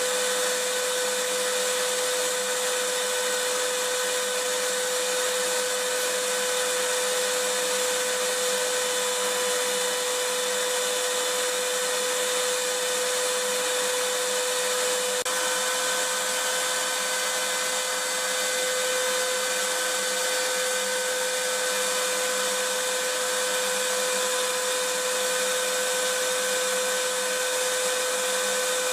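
Vacuum cleaner running steadily: a constant rushing hiss with a steady motor whine, whose pitch shifts slightly about halfway through.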